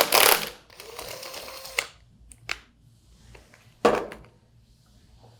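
An impact wrench rattling the impeller nut off a Waukesha 200 Series centrifugal pump in a short burst at the start, followed by quieter running to about two seconds in. Then a few scattered metal clicks and a sharper knock about four seconds in as the nut and parts are handled.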